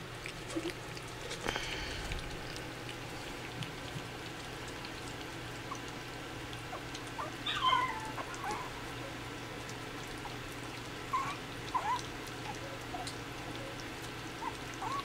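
Miniature dachshund puppies lapping and smacking soft mushy food, with a few short, high dog whimpers: one about halfway through and a couple more in the last few seconds.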